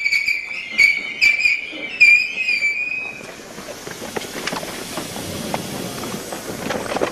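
Station attendant's whistle blown in several short blasts, then one longer blast that ends about three seconds in. After it comes the shuffling and knocking of a packed crowd of commuters pushing onto the train.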